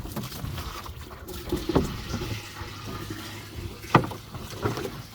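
Water running into a water container as it is being refilled, with handling knocks, the sharpest about four seconds in.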